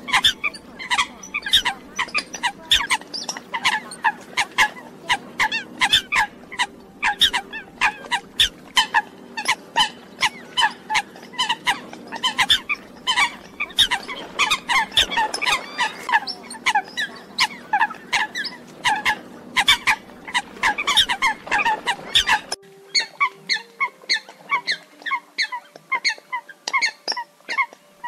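A flock of Eurasian coots calling, played as a recorded bird-trapping lure: a dense run of short, sharp calls, several a second. About 22 seconds in, the track changes, the low background drops away and the calls become sparser.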